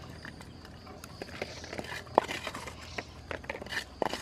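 Crisp fried pieces dropped and pushed onto a pile in a wicker basket lined with banana leaf, giving scattered light crunchy clicks, the sharpest about two seconds in.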